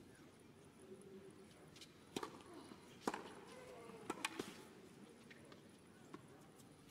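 Tennis ball struck by rackets in a short hard-court rally: a sharp hit about two seconds in, the loudest hit about a second later, then two more quick hits or bounces around four seconds in, over a faint crowd murmur.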